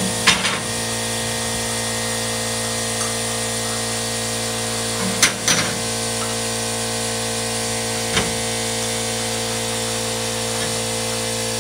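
Steady machine hum from the jack's pump running while the race car is lifted on its new jacks, with three sharp metallic clicks near the start, about five seconds in and about eight seconds in.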